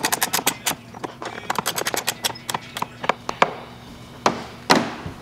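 Ratcheting wrench clicking in quick runs as a light-pod mounting nut is snugged down, with two louder knocks near the end.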